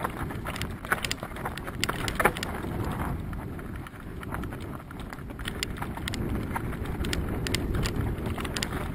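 Mountain bike riding down a rocky, gravelly trail: wind rushing over the camera microphone, with the bike rattling and the tyres knocking and clicking over stones.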